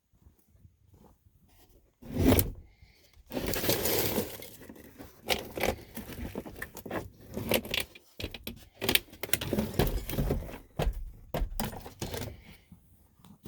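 Handling noise: a run of clicks, scrapes and clatter as things are moved about by hand, starting about two seconds in after a near-quiet start.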